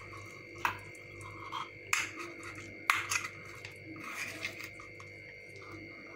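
A metal spoon scraping and clinking against a stainless-steel idli plate as steamed egg cakes are prised out of its moulds: several sharp clinks, the loudest about three seconds in, with scraping between them. A faint steady high tone runs underneath.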